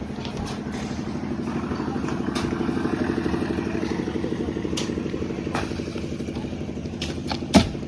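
An engine running steadily, getting louder to about three seconds in and then easing off, with scattered clinks and clatter and one sharp knock near the end.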